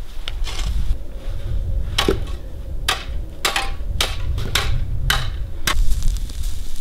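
Snow shovels scraping and chopping into packed snow: a run of about nine short, sharp scrapes and strikes in irregular rhythm, over a steady low rumble.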